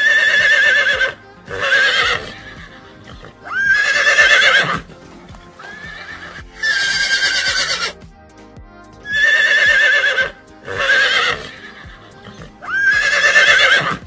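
Horses whinnying: seven loud neighs of about a second each, with a quavering pitch, spaced one to two seconds apart.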